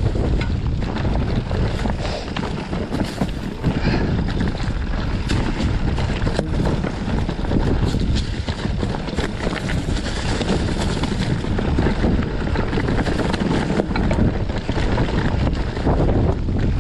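Wind rushing over the microphone while a mountain bike rides rough singletrack, with many small rattles and knocks from the bike over rocky ground.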